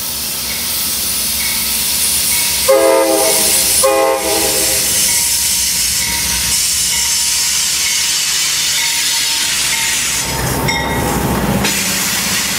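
Amtrak GE Genesis diesel locomotive arriving: two short blasts of its air horn about three seconds in, over the steady hissing rush of the moving train. The diesel engine's low rumble swells near the end as the locomotive passes close by.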